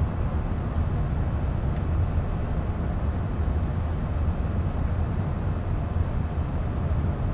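Steady low rumble of a passenger aircraft's engines and airflow, heard inside the cabin during the descent to land.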